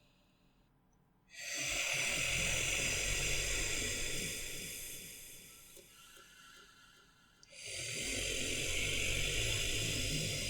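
Monster breathing sound effect: two long, deep, hissing breaths with a low rumble underneath. The first begins suddenly about a second in and fades out over about four seconds; the second begins about seven and a half seconds in and is still going at the end.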